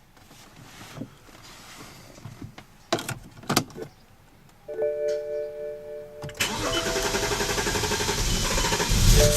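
BMW N54 twin-turbo inline-six being started: a couple of clicks, a steady whine, then the starter cranks for a few seconds before the engine catches near the end. This long crank is one of the owner's symptoms alongside rough idle and misfires, which he suspects is a fuel delivery problem.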